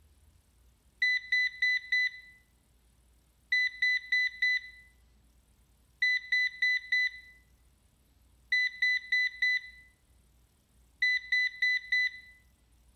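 Ecovacs DEEBOT N79S robot vacuum beeping on its charging dock. It gives five groups of four quick, high beeps, one group about every two and a half seconds. This is the N79S's 20-beep error, which a battery replacement cured.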